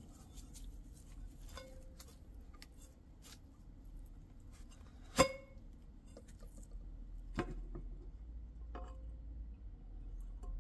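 Metal parts of an R-60 missile's seeker section clicking and knocking as it is handled and its rear plate is separated from the body. One sharp, ringing metallic clink about halfway through is the loudest sound, with softer knocks a couple of seconds and three and a half seconds later.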